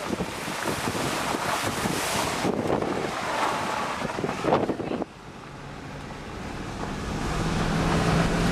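Wind rushing over the microphone at an open car window, cutting off suddenly about five seconds in. After that, a steady low hum of the car's engine and road noise inside the cabin, growing louder.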